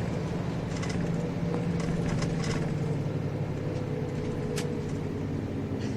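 Diesel engine of a Nissan Diesel Space Runner RM city bus heard from inside the cabin while driving: a steady drone that drops slightly in pitch midway, with one short click about four and a half seconds in.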